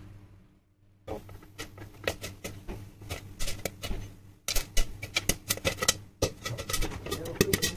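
Popcorn kernels popping in ghee in a covered pan: sharp pops and clicks begin about a second in and come thick and fast from about halfway through.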